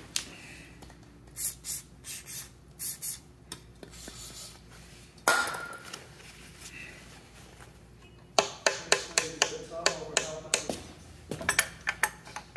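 Steel hand tools clinking and tapping on the Jaguar XK120 engine's timing chain tensioner adjuster while it is being worked loose. There are scattered light clicks, one sharper knock about five seconds in, then a quick run of metallic ticks from about eight seconds in.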